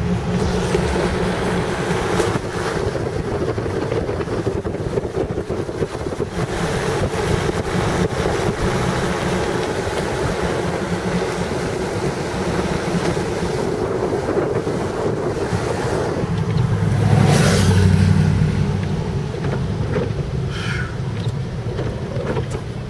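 Pickup truck cab noise while driving: steady engine and road rumble with wind buffeting the microphone, swelling louder for a second or two about three-quarters of the way through.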